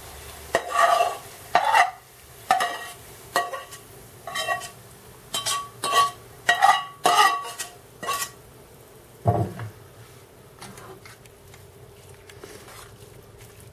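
A spatula scrapes and knocks against metal frying pans, tipping fried carrots and onions into a pan of fried potatoes. There are about a dozen quick scrapes with a ringing metallic clack, a single low thump a little past nine seconds in, then softer stirring.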